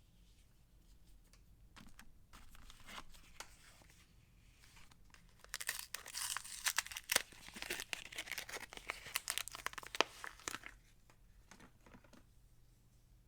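A soap bar's wrapper being torn open and crinkled by hand: faint rustling at first, then a dense stretch of crackling and tearing from about the middle, dying down near the end.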